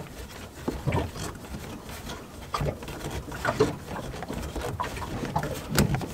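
Irregular knocks, clicks and short squeaks of hands working at a fuel filter bowl and its housing in a boat's engine compartment.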